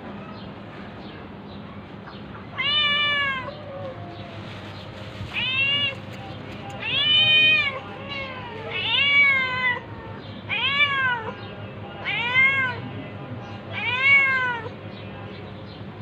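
A domestic cat meowing seven times, roughly every two seconds, each meow rising and then falling in pitch.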